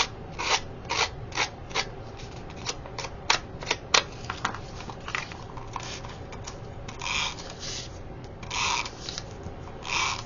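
A hand-held paper distressing tool scraping along the edge of a thin paper square in quick, short strokes, roughing it into a white torn-paper edge. After about four seconds the strokes become fewer and longer.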